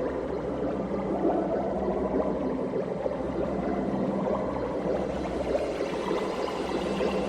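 Water running and pouring steadily, with a low gurgle.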